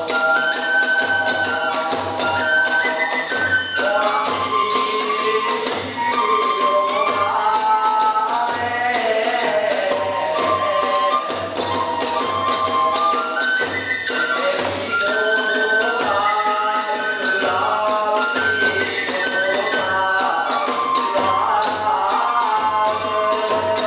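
Kagura hayashi ensemble playing: a transverse flute carries a stepping melody over a regular taiko drum beat and clashing small hand cymbals.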